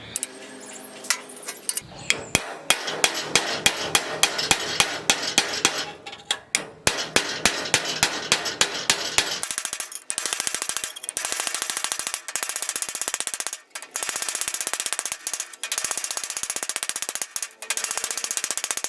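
Welding arc crackling and spitting in runs of a few seconds, broken by short pauses. The first half has sharper, irregular snaps; about halfway it settles into a steadier, continuous sizzle.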